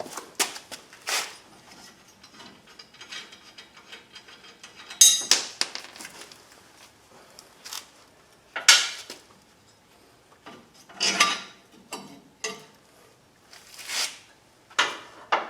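Metal hand tools and parts being handled under a truck: scattered clicks and clanks, a few of them loud, with a short burst of rapid clicking about five seconds in.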